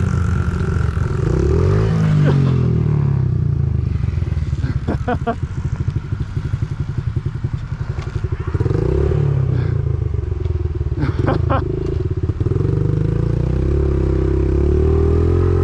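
Small Honda four-stroke mini bike engine ridden around a dirt track, revving up and easing off again and again as the rider works the throttle through turns. A few short clattering knocks come around five and eleven seconds in.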